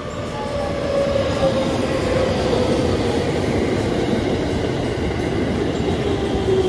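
JR Central 313 series electric train running past close by, wheels rumbling on the rails, its motor whine falling slowly in pitch as the train slows. The sound grows louder about a second in as the cars draw level.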